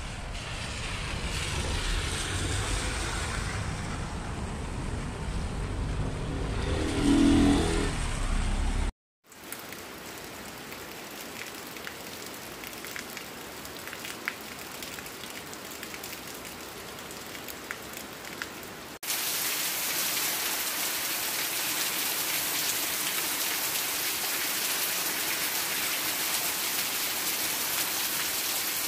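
Heavy rain pouring onto wet pavement and ground, with cars driving through the wet street and one vehicle passing loudly about seven seconds in. After a brief break the rain goes on as a steady hiss, becoming louder from about two-thirds of the way through.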